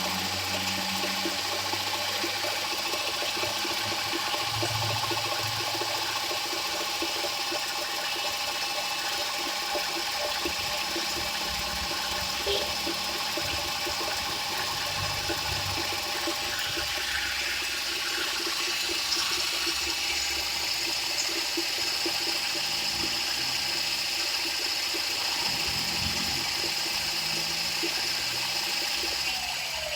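An electric drill turns a Hino Dutro 130's differential gears with a steady whir and gritty hiss, lapping the ring and pinion to cure a humming differential. The drill winds down right at the end.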